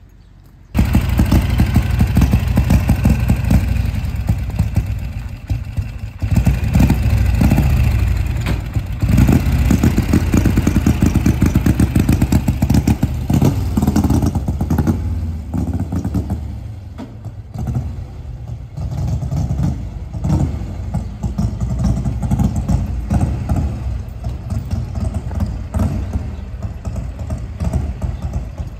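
1957 Harley-Davidson Panhead's air-cooled V-twin engine, which comes in abruptly about a second in and then runs with rapid firing pulses. It surges twice as the motorcycle pulls away, then grows quieter as it rides off.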